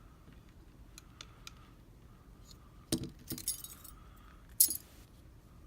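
Small metal clicks and clinks as the Abus/Brady 71/40 lockout padlock and its key or tools are handled. There is a sharp click about three seconds in with a short jingle after it, and the loudest, ringing click comes a little past four and a half seconds.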